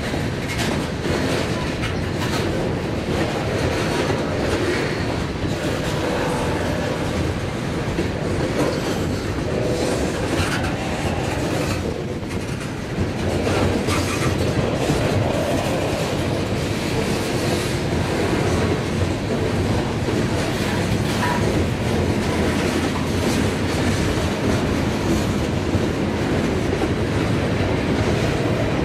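Freight cars rolling past close by: a steady rumble of steel wheels on rail with a repeated clickety-clack as the wheelsets pass.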